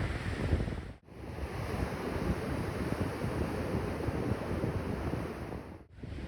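Sea waves washing on the shore, with wind buffeting the microphone. The sound cuts out briefly twice, about a second in and near the end.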